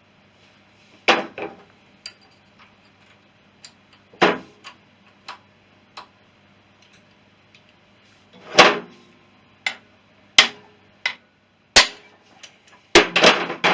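Sharp hammer blows on a hand impact driver, loosening tight screws on a Honda CB350's engine cover. About a dozen single strikes a second or so apart, some harder than others, with a quick run of three near the end.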